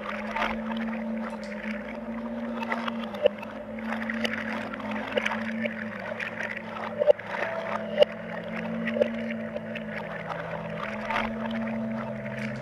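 Ambient live-looped electronic music played on an SP-404 sampler: low held tones that change pitch now and then under a rustling, watery-sounding noise texture, with a few sharp clicks.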